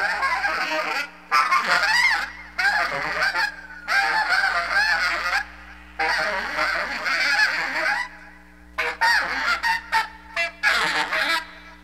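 Free-jazz saxophone blowing short, wavering, pitch-bending phrases broken by brief pauses, over a sustained low drone.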